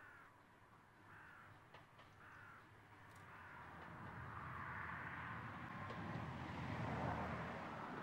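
A crow caws three times in the first few seconds. Then the approaching auto train grows steadily louder, with the GWR 14xx-class 0-4-2 tank engine 1450 propelling its auto coach; the noise peaks about seven seconds in.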